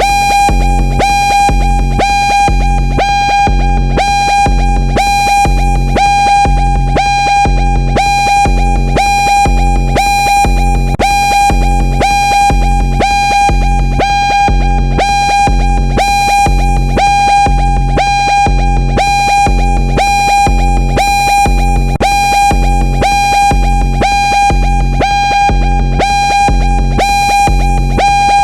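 Synthesized futuristic emergency alarm: a loud, steady electronic tone that pulses about twice a second over a low throbbing beat, repeating without change.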